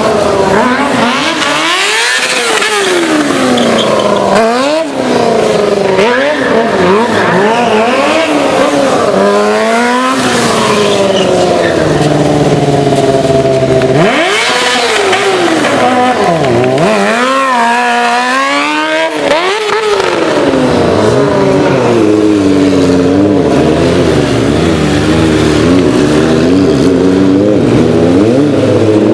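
Stunt motorcycle engine revved up and dropped back over and over, its pitch rising and falling in long swings, then held at a steadier throttle in the last third.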